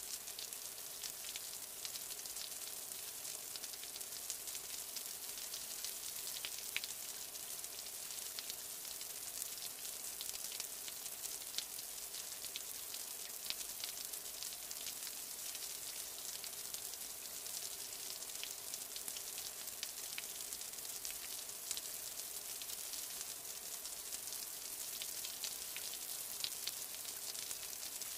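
Steady rain: an even hiss dotted with many small, sharp drop ticks.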